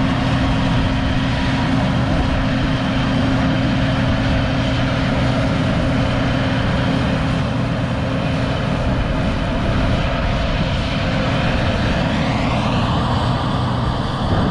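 Heavy vehicle engine running steadily with a low, even hum, mixed with a wash of wind or road noise; near the end a higher whine rises in pitch.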